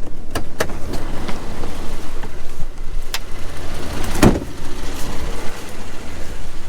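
A motor vehicle running with a steady low hum, with scattered sharp taps and one louder knock about four seconds in.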